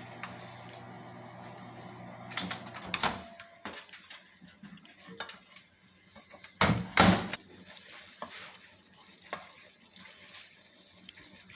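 Cookware and utensils clattering on a stovetop, with scattered clinks and knocks and two loud metal clanks close together about seven seconds in. A steady hum underneath stops about three seconds in.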